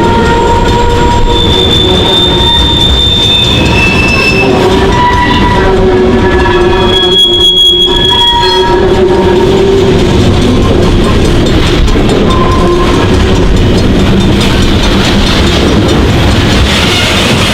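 Freight train rolling past at close range, a loud steady rumble with its wheels squealing against the rails in several shifting high tones that come and go.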